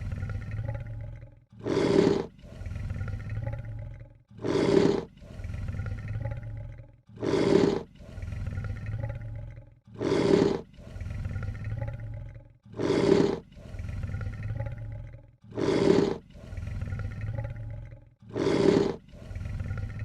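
Lion hissing in a regular repeating loop: seven sharp, loud hisses about every 2.7 seconds. Each hiss is followed by a quieter, lower, rumbling sound.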